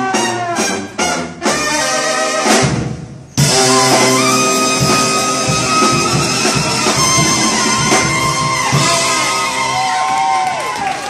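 Live brass band of trombone, sousaphone, saxophones and drum kit playing: short rhythmic brass stabs over the drums, a brief break, then long held brass notes over drum hits, the top note bending downward near the end.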